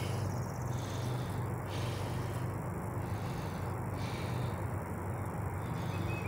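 Steady low rumble and hiss of wind and handling on a handheld phone's microphone in open woods, with a higher hiss that swells and fades about once a second.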